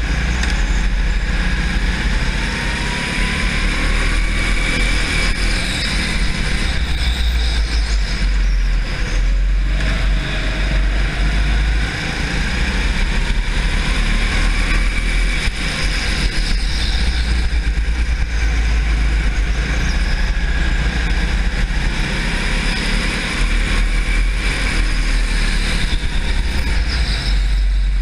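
Onboard sound of a racing go-kart's engine running hard through laps of an indoor track, with a heavy low rumble and faint whines that rise and fall as the kart slows and accelerates through the corners.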